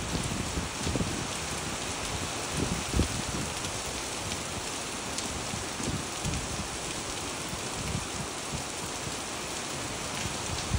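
Steady rain falling on wet pavement and puddles: a dense, even hiss of drops splashing, with a few soft low bumps here and there.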